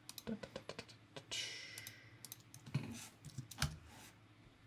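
Scattered clicks and taps of a computer mouse and keyboard while editing, with the loudest click about three and a half seconds in. A brief soft rush of noise comes just over a second in.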